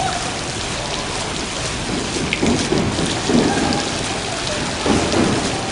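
Water from a digital water-curtain fountain falling in timed streams and drops from an overhead nozzle bar, a steady patter like heavy rain, swelling a few times.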